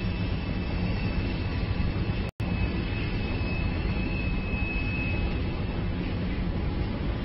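Steady low rumble with hiss from the city below the rooftop camera, with a thin high whine held for about three seconds in the middle, and a momentary cut-out of all sound about two seconds in.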